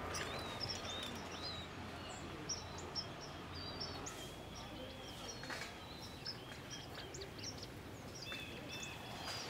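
Outdoor ambience: small birds chirping many short calls over a steady background noise, with a low hum that fades out about four seconds in.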